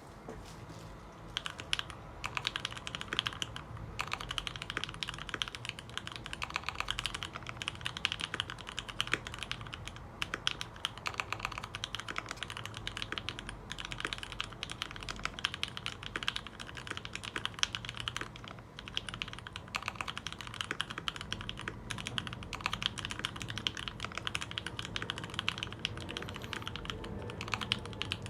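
Dolphin V3 custom mechanical keyboard being typed on steadily and quickly: a dense stream of keystroke clacks from lubed linear Tealios switches in Cherry top housings with 65 g springs.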